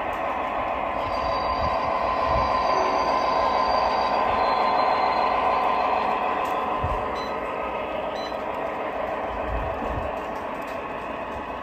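O scale model freight train rolling past on three-rail track: a steady metallic rolling rumble of the wheels on the rails. It grows louder for the first few seconds as the locomotive and hopper cars come close, then eases off, with faint high squeals above it.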